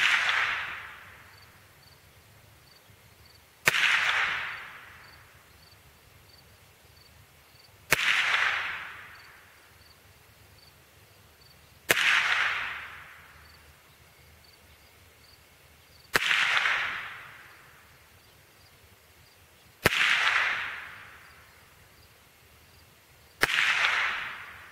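Ruger SR-22 .22 LR semi-automatic rifle fired in slow aimed single shots, seven shots about four seconds apart. Each sharp crack is followed by a ringing echo that fades over about a second and a half.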